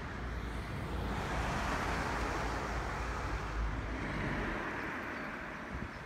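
Wind gusting through trees and grass, with wind buffeting the microphone as a low rumble. The gust swells about a second in and eases off near the end.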